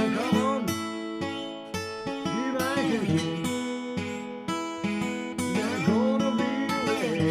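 Steel-string acoustic guitar played slide blues style: fingerpicked bass notes under slide notes that glide up and down, in three swoops.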